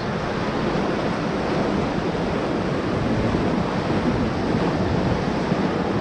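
Whitewater rapids of the Ocoee River churning around an inflatable raft: a steady, loud rush of water.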